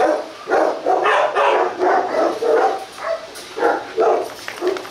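Rottweilers barking loudly in a rapid series of about eight barks, some short and some drawn out, as a male and a female scuffle.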